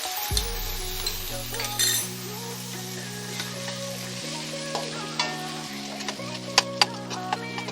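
Chopped onion, ginger-garlic paste and tomato sizzling in hot mustard oil in a kadai while being stirred, with a few sharp clicks of the spatula against the pan, two close together near the end.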